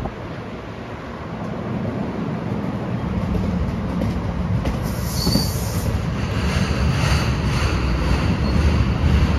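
NJ Transit double-deck commuter coaches rolling past on steel rails, their wheels rumbling and growing steadily louder. A brief high wheel squeal comes about five seconds in.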